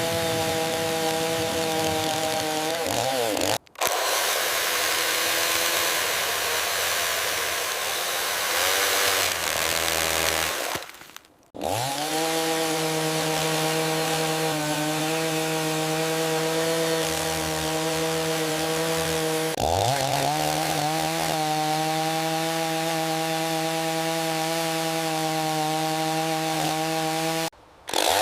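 Small chainsaw cutting into a log, its engine running at a steady high pitch with a sawing hiss. The sound drops out briefly three times, and twice the engine note sweeps back up as it revs again.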